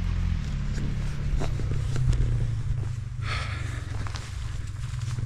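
A vehicle engine idling with a steady low hum, with scattered light clicks and a brief rustle about three seconds in.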